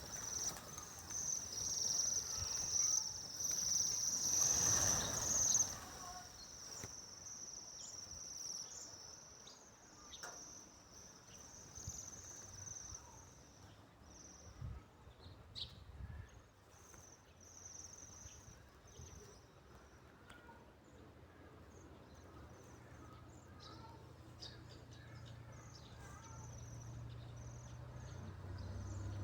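Insects, crickets or cicadas, trilling steadily at a high pitch, loudest for the first six seconds or so, then fainter and broken up. Short high chirps are scattered through.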